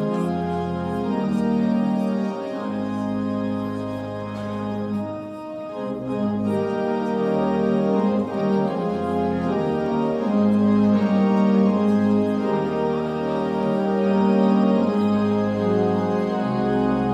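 Slow organ music of held chords, each chord sustained for a second or two before moving to the next.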